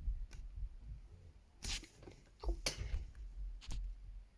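Coloured pencils being put back into a pencil case: a few light clicks and knocks of pencils against each other and the case, with low handling noise.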